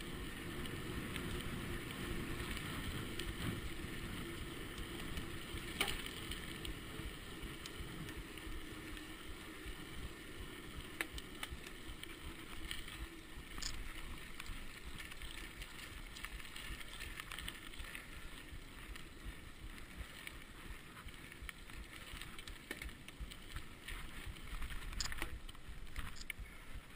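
Mountain bike rolling fast, its tyres on paved path and then on a dirt track, heard as a steady rushing rumble. Short clicks and knocks from the bike come through now and then.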